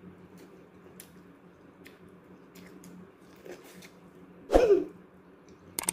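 Faint, scattered clicks of someone biting and chewing boiled corn kernels off the cob. About four and a half seconds in comes one short, loud throat sound, like a cough, that falls in pitch.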